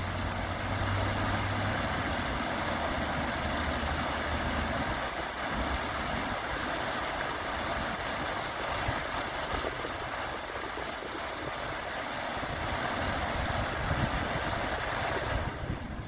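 Rows of fountain jets spraying and splashing back into a pond, a steady rushing hiss of falling water that drops away abruptly near the end as the jets die down. A low hum lies under it for the first few seconds.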